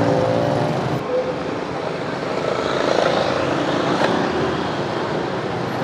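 Street traffic with motorbike and scooter engines running, a steady busy street noise. The sound changes abruptly about a second in.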